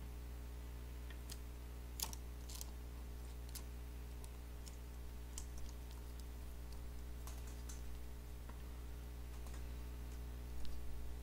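Scattered light clicks and taps of small hand work at an electronics repair bench, the sharpest about two seconds in and a few more near the end, over a steady low electrical hum.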